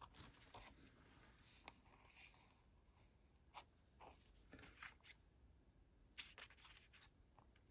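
Near silence with faint, scattered rustles and light taps as small pieces of paper and fabric are moved about on a tabletop.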